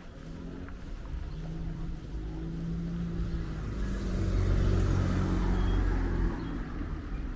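A motor vehicle's engine passing close by on the street, its low rumble growing louder to a peak about two-thirds of the way in, then falling away.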